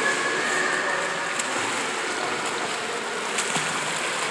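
Swim fins kicking and splashing at the surface of a swimming pool, a steady rushing wash of water.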